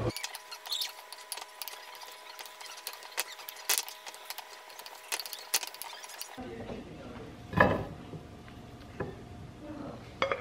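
Wooden spoon stirring cubed potatoes in a glass bowl, with scattered clicks and light scrapes of the spoon against the glass. One louder knock comes a little past halfway, and another just before the end as the bowl is tipped over a glass baking dish.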